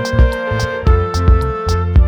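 Background music with a steady beat: sharp percussion hits about three times a second over a deep bass and a sustained melodic line.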